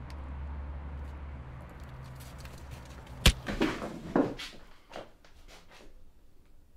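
A steady low hum of background ambience, broken about three seconds in by a single sharp knock and a few short thumps and shuffles of movement. After that the hum drops away to a quiet room with faint small clicks.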